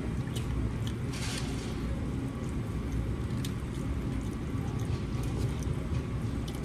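Eating sounds: a fork clicking and scraping in a takeout bowl of pasta, with chewing, over a steady low rumble of background room noise.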